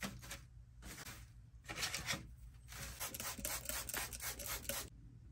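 Dry sphagnum moss crackling and rustling as fingers press it into a clear plastic egg carton. It is a dense run of small crackles that starts about two seconds in and stops shortly before the end.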